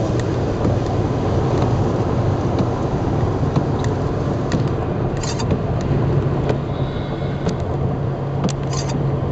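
Car driving at road speed, heard from inside the cabin: steady road and engine noise, with the engine hum growing stronger about six seconds in. A few short clicks sound over it.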